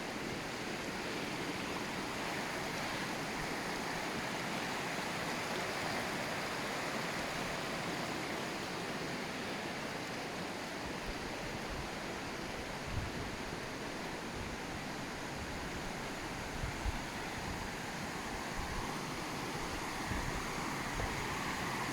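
Steady rush of falling river water along a waterfall gorge, with a few brief low thumps on the microphone in the second half.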